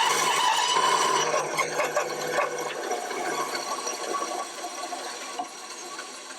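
A power tool working the wood of a knife handle as it is shaped, a steady noise with a hum in it that gradually dies away over the last few seconds.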